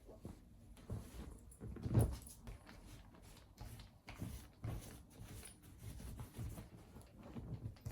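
Scattered light knocks and clunks of things being handled in a small room, the loudest thump about two seconds in.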